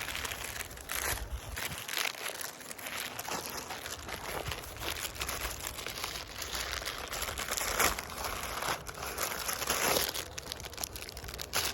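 Parcel packaging being crinkled and handled as the small inner packages are unwrapped, an irregular run of crackly rustling.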